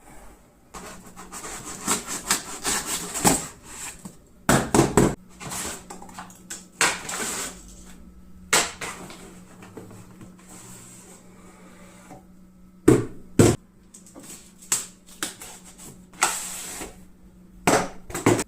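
A boxed whisky bottle being unpacked by hand: cardboard packaging rustles and scrapes, with several sharp knocks as the box and bottle are handled and set down.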